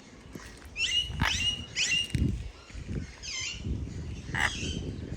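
Birds calling: a quick run of short, sharp high calls, some ending in a held whistle, about a second in, then a falling call and one more sharp call near the end.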